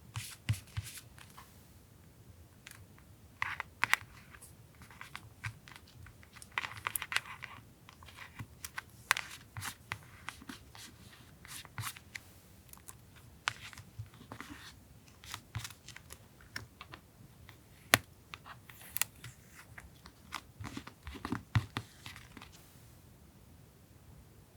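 Paper being handled in diary collage work: short rustles, crinkles and tears, with scattered sharp clicks and taps on the desk.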